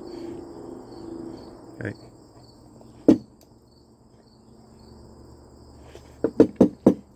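Crickets chirping steadily in a fast pulsing trill. A few short sharp sounds stand out: one about three seconds in, and a quick run of four or five near the end.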